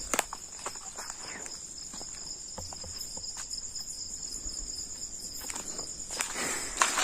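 Crickets chirring steadily at night on two high pitches, with scattered clicks and rustles close by that grow loudest near the end.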